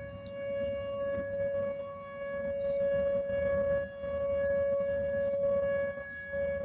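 Outdoor tornado warning siren sounding a steady held tone during a siren test, fading briefly twice, over a low rumble.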